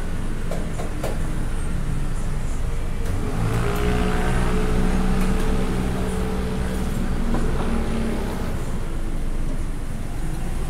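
A motor vehicle's engine running close by over a steady street rumble. It comes up about three seconds in and fades away near the end.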